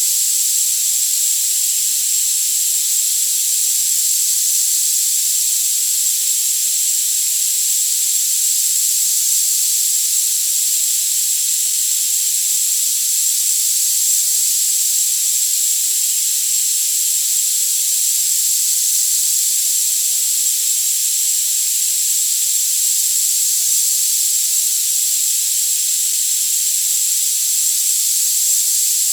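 Tinnitus masking sound: a steady, thin high hiss with a single high-pitched tone held constantly over it.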